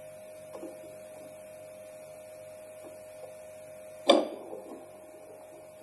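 A steady hum with a faint tone, then one sharp clack about four seconds in as the fetal doppler's probe is set into its holder on the unit; the tone stops after the clack.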